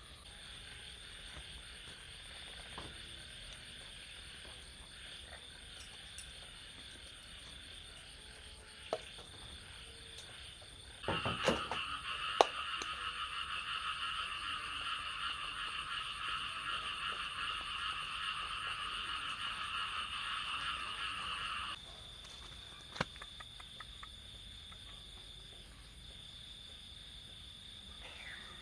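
Night chorus of frogs croaking steadily, much louder for about ten seconds in the middle, with a few sharp knocks along the way.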